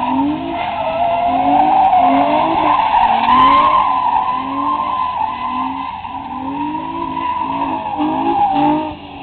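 Nissan 350Z drifting: its tyres squeal in a long, wavering screech while the V6 engine revs up and down in quick pulses. The squeal cuts off shortly before the end.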